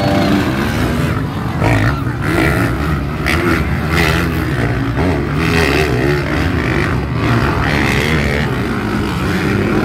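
Several motocross dirt bike engines running and revving as the bikes race round a dirt track, their pitch rising and falling over and over.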